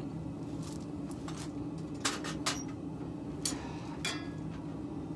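Scattered light metallic clinks and taps of steel and smithing tools, about six in all, one near four seconds in ringing briefly, over a steady low hum.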